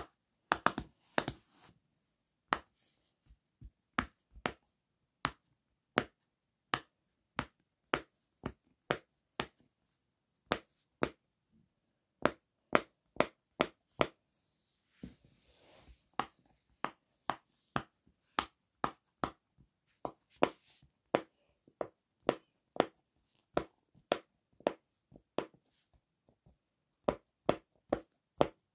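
Bubbles of a large round rainbow silicone pop-it fidget toy pressed in one at a time with a finger: a string of sharp little pops, roughly one or two a second, with a brief rustle about halfway through.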